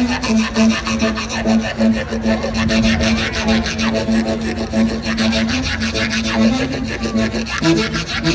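Music for the dance played through the stage loudspeakers: a held low note under a fast, even rasping, scraper-like percussion rhythm.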